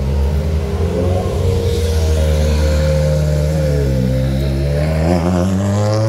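Toyota GR Yaris Rally1 rally car's turbocharged four-cylinder engine running at low revs; the revs dip about four seconds in and then climb again.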